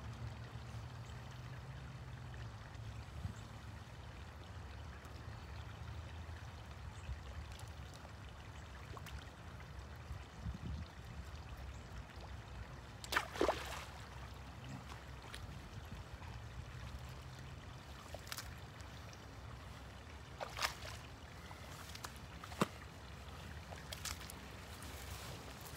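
Water trickling and dripping as a magnet-fishing rope and magnet are hauled out of a shallow drainage ditch, with a few splashes and sharp clicks scattered through. Rubber boots slosh in shallow water near the end.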